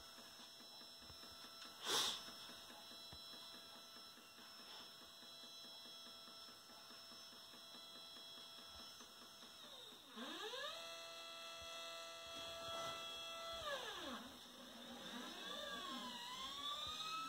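Stepper motors driving a telescope mount under Arduino GRBL control. After a single click about two seconds in, a motor whine starts at about ten seconds, rises in pitch as it speeds up, holds steady for about three seconds, then falls as it slows to a stop. A second, wavering whine rising and falling runs near the end.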